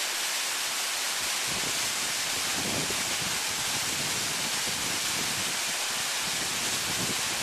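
Waterfall pouring out of rock into a pool: a steady, even rush of falling water.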